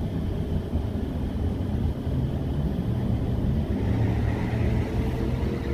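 Car engine and road noise heard from inside the cabin while driving slowly: a steady low rumble with a faint engine hum.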